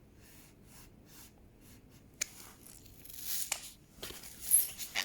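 Plastic puzzle cubes being handled and moved: a sharp click about two seconds in, then rustling and clattering, loudest near the end.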